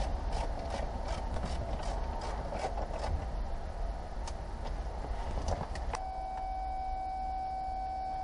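Hand tools clicking in a steady rhythm of about three clicks a second while working behind a stripped-out car dashboard. About six seconds in the clicking stops and a steady beep-like tone sounds.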